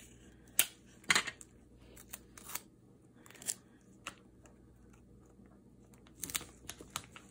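Clear tape pulled from a desk dispenser and torn off, then pressed onto a paper envelope by gloved hands: a series of short crackly rips and taps, with a quiet stretch in the middle and another cluster near the end.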